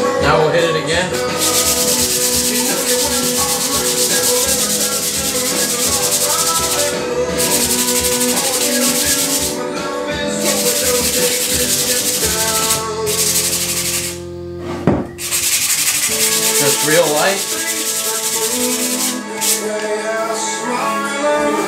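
Sandpaper rubbing back and forth by hand on a torch-charred hickory hammer handle, taking off the char. It goes in long runs with a few short pauses and stops near the end, over background music.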